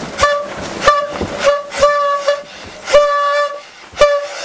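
A party horn noisemaker blown in a run of short toots on one steady pitch, with a couple of longer held blasts in the middle.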